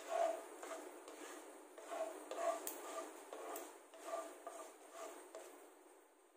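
Mustard seeds and fenugreek frying in hot oil: a sizzle with irregular short sputters and a couple of sharp pops as the seeds begin to splutter. It fades away near the end.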